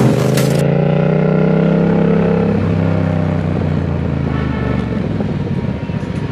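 Yamaha MT-07's 689 cc parallel-twin engine running as the motorcycle rides through city traffic, heard from the rider's position. Its note holds for a couple of seconds, then drops in pitch as the throttle eases, giving way to a rougher rumble and road noise.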